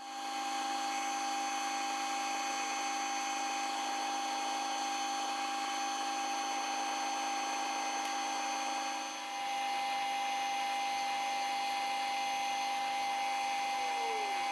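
Metal lathe turning a long bar with a follow steady in place, the tool taking a final turning cut along it. The lathe runs with a steady whine and a brief dip about nine seconds in.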